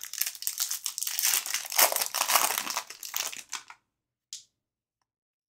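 Foil wrapper of an Upper Deck CHL hockey card pack being torn open and crinkled by hand: a dense crackling that stops about four seconds in, followed by one faint tick.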